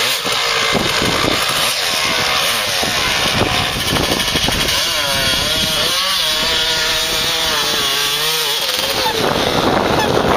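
Two-stroke dirt bike engines revving, the buzzing pitch rising and falling over and over as the throttle is worked.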